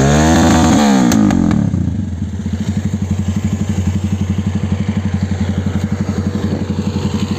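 Motorcycle engine blipped, its pitch rising and falling back in the first second or two, then settling into a steady, evenly pulsing idle.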